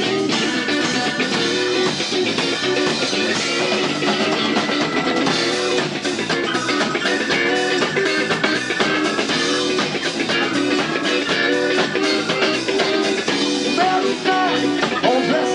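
Live blues-rock band playing an R&B groove, with electric guitar, electric bass and drum kit.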